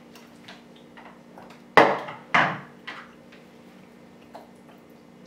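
Plastic blender lid being taken off the container and set down on a wooden table: two sharp clunks about two seconds in, half a second apart, then a few lighter clicks.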